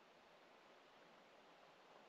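Near silence: faint steady hiss of outdoor room tone.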